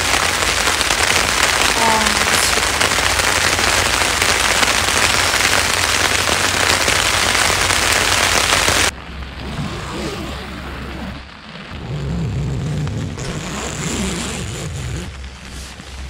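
Heavy rain falling on a tent's fly, heard from inside the tent as a loud, even hiss. About nine seconds in it cuts off abruptly to much quieter rain with a low rumble.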